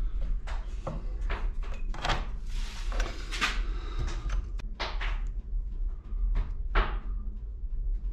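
Irregular small clicks and rustles of a micro-USB charger cable and its plastic connector housing being handled and worked together by hand, with the cable brushing the hardboard surface. A steady low hum runs underneath.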